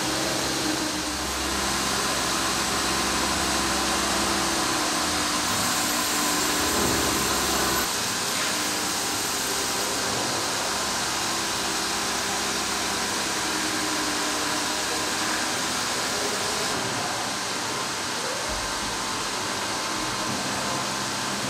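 Intermac Master 45 Plus five-axis CNC stone work centre milling a stone block with a water-cooled tool. The spindle and cutting noise is steady, with a hiss of water spray, and the low hum under it shifts a few times.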